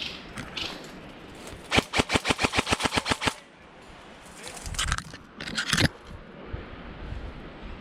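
Airsoft gun firing a full-auto burst of about fifteen rapid shots, roughly ten a second, lasting about a second and a half and starting a couple of seconds in.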